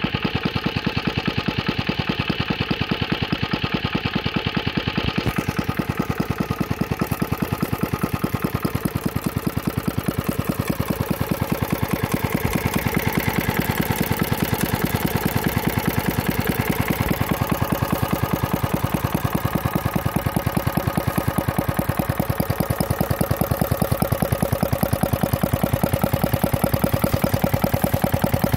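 1948 Clinton B700 four-cycle, air-cooled small engine running steadily with an even, rapid firing beat.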